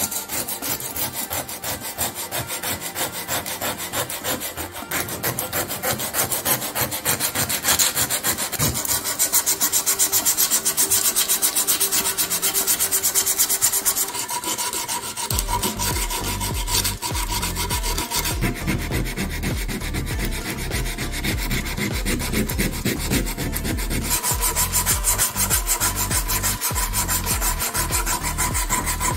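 Sandpaper rubbed back and forth in rapid short strokes over the bare, corroded metal of a diecast model car body, a continuous scratchy rasping.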